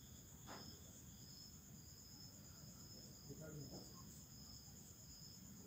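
Near silence with faint, steady high-pitched insect chirring, one of the calls pulsing evenly a little faster than once a second.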